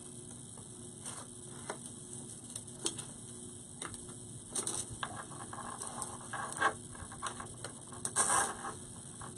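Artificial flowers and their stems being handled and layered into an arrangement: irregular light clicks and short rustles, busiest in the second half.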